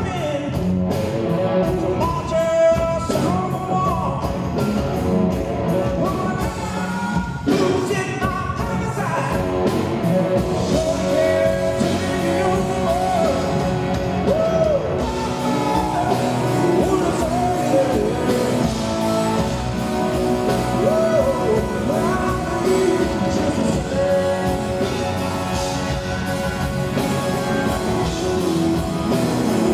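Live rock band playing, with a male lead vocal and electric guitar over the band.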